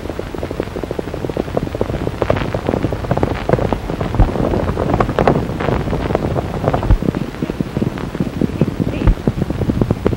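Hooves of a group of galloping horses drumming in a dense, irregular clatter, building up over the first couple of seconds, heard through the hiss of an old film soundtrack.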